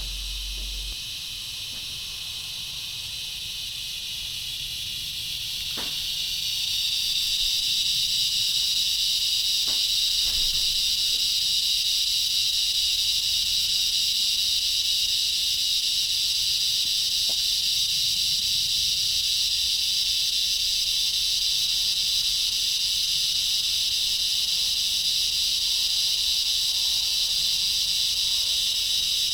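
Very loud, strange chirping or buzzing insect chorus from a tree: a continuous high-pitched buzz that grows louder over the first several seconds, then holds steady.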